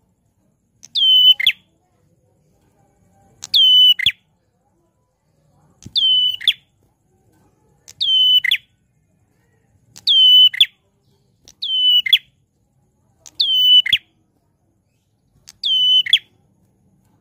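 Ashy tailorbird (prenjak klawu) calling loudly: eight identical calls, about one every two seconds. Each is a short high whistle that slides down, holds briefly, then drops off at the end.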